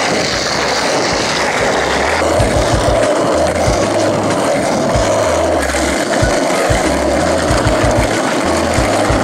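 Skateboard wheels rolling over asphalt and concrete, a steady loud rumble. Underneath, from about a second and a half in, there is a low bass line of stepped notes and a few low thumps.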